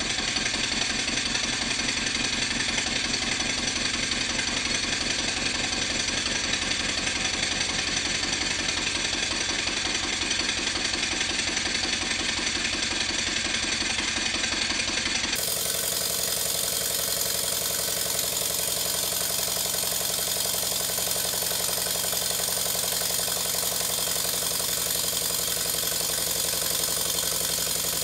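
Stuart Models S50 model mill engine running on compressed air, giving a steady, even beat of exhaust puffs and light mechanical clatter from the crank and crosshead. Its valve timing is set for slightly earlier admission just before top dead centre, which cushions the moving parts so it runs smoothly. The sound changes abruptly about halfway through.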